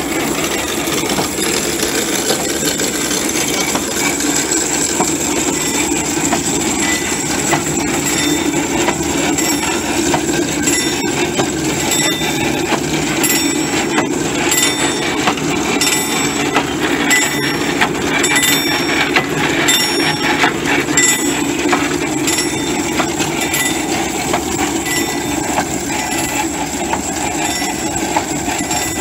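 Tractor-towed disc lime spreader on the move: its wheel-driven chain and gear drive and spinning spreader discs rattle and clatter steadily over the even running of the tractor's engine.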